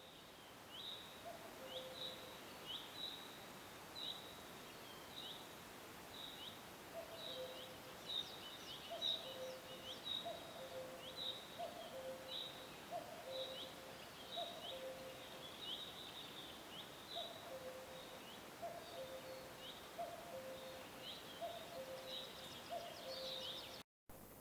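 Birds calling over a steady background hiss: a short high chirp that slides downward, repeated about every two-thirds of a second, with a lower two-note call repeating alongside it from about seven seconds in.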